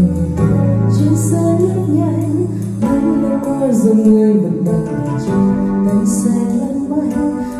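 A woman singing karaoke in Vietnamese into a handheld microphone over an instrumental backing track, played through a 4-Acoustic PCS-115Q loudspeaker.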